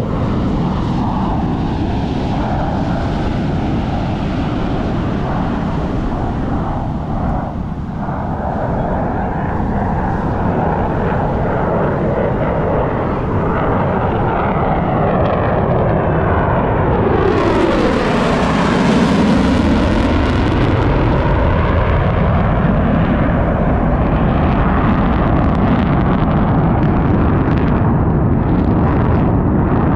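Fighter jets flying over in formation, their engine roar loud throughout; about 17 seconds in it swells and the pitch sweeps down steeply as they pass. Surf washes on the beach underneath.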